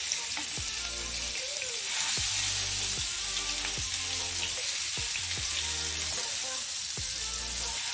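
Indian mackerel fillets shallow-frying in coconut oil in a pan: a steady sizzle of hot oil around the fish.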